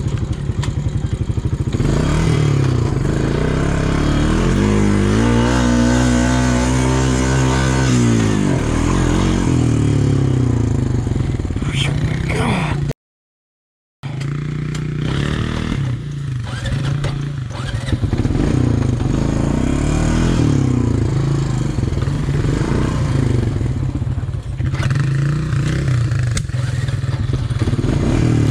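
ATV engine revving up and down under hard riding over a rough trail, with the machine clattering and rattling over bumps. The sound drops out completely for about a second around the middle.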